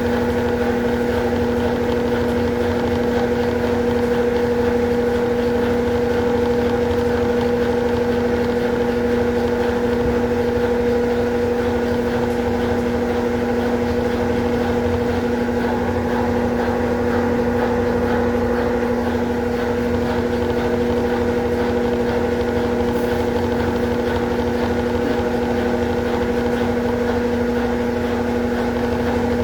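Consul Facilite 11 kg top-load washing machine running in its rinse cycle: a steady motor hum with an even tone that does not change.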